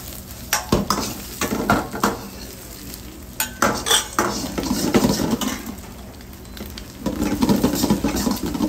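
Metal ladle scraping and clanking against a steel wok as egg, onions and mushrooms are stir-fried, over a steady sizzle. The clanking eases off a little past halfway, then picks up again near the end.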